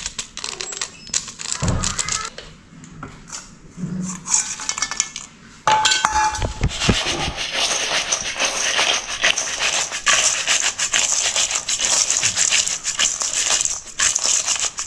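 Crushed dry instant noodles, chopped vegetables and fried dried meat tossed in a steel mixing bowl: a dense, continuous rattling and scraping that starts suddenly about six seconds in. Before that come a few quieter taps and rustles as seasoning is sprinkled in.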